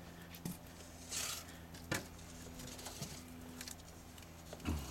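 Faint scattered crunches and swishes of footsteps in deep snow, over a steady low hum.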